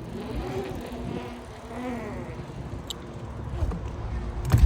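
BMX bike being ridden, a steady mechanical hum with a sharp knock near the end.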